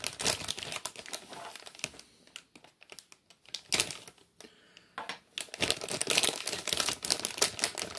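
Clear plastic parts bag crinkling and crackling as a toy vehicle is worked out of it. The crackling is busy at first, thins out in the middle, and is busy again from about two-thirds of the way in.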